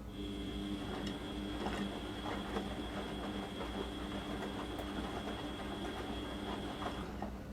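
Beko WM6255W washing machine's drum turning during the wash, its motor running with a steady whine over a clattering rumble for about seven seconds, then stopping abruptly.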